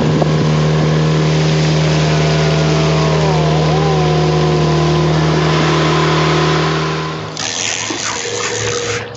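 Outboard motor of a small inflatable boat running under way at a steady pitch, cutting off suddenly about seven seconds in. A loud rushing hiss follows.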